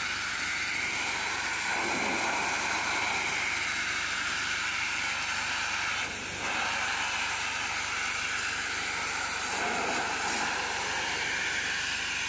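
High-pressure water jet from a pressure-washer lance hissing steadily as it blasts the wooden spindles and rails of a deck railing.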